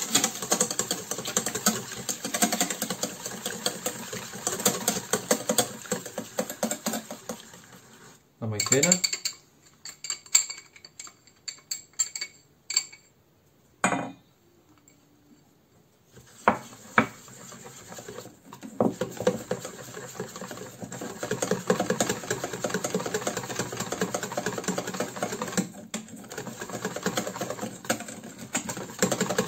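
Wire whisk beating egg in a stainless steel bowl: fast, steady clinking and scraping of metal on metal. It stops for several seconds in the middle, with a few separate knocks while cornstarch is poured in. Then it starts up again as the egg and cornstarch are beaten into a thick frying batter.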